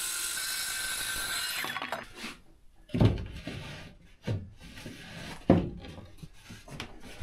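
A steady mechanical whirr that stops about two seconds in, then knocks, thuds and rubbing of plywood boards and tools being handled, with the sharpest knocks about three and five and a half seconds in.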